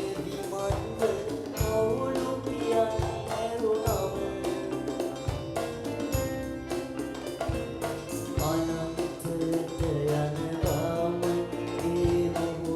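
Music: a melody over a steady drum beat, with no words sung.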